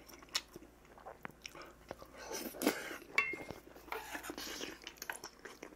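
A man chewing a mouthful of rice, with wet mouth sounds and small clicks, and a short metallic clink of a spoon against a stainless steel bowl about three seconds in.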